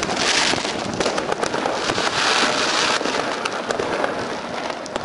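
New Year's Eve fireworks and firecrackers going off in great numbers at once: a constant crackle dotted with many sharp bangs.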